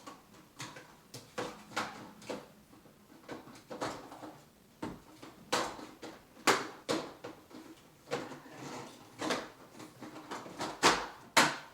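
Plastic parts of a Hoover Insight upright vacuum being handled and pushed together: a string of irregular clicks and knocks as a part that had not seated is refitted, with two sharper knocks near the end.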